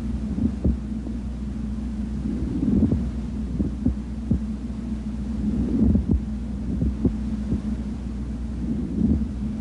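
Pleural friction rub heard through a stethoscope on the chest: low, rough rubbing noises that swell with each breath, about every three seconds, over a steady low hum. It is the sign of inflamed pleural surfaces rubbing against each other.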